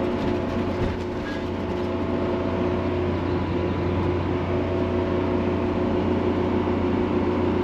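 Steady drone of a motorhome's engine and tyre noise heard inside the cab, with a constant low hum, the engine working at full throttle up a steep grade.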